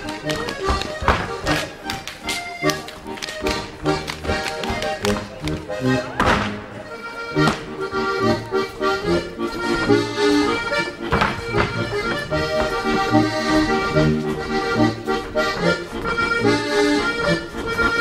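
Lively folk-style music with an accordion carrying the melody over a steady beat.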